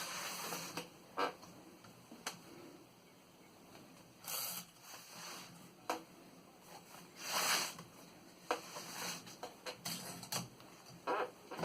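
Handling of a 1924 Underwood 3-bank portable typewriter and its wooden case: scattered sharp mechanical clicks and a few short scraping swishes, with a cluster of quick clicks in the second half.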